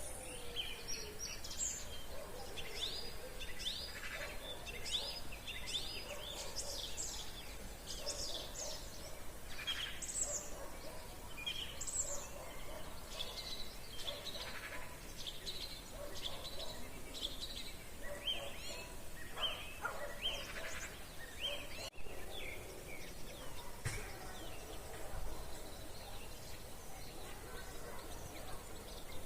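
Many songbirds singing together in a spring evening chorus, with short chirps and trills overlapping throughout.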